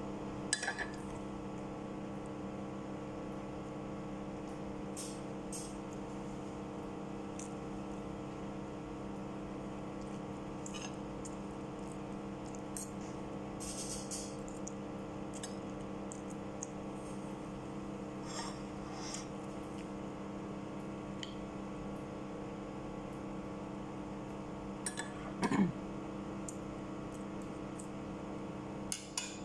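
Steady hum of a kitchen appliance, with occasional faint eating sounds over it: a noodle slurp about 14 seconds in, small clinks, and a short louder mouth noise about 25 seconds in.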